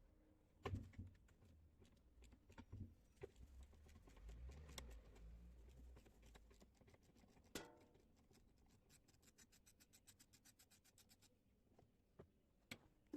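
Faint knocks and clicks of hand tools working on a washing machine during disassembly, with a run of quick, even clicking about two-thirds of the way through.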